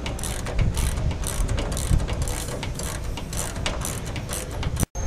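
Socket ratchet wrench clicking in a fast, uneven string as the bolts connecting an aileron push-pull rod are backed out. The clicking cuts off abruptly near the end.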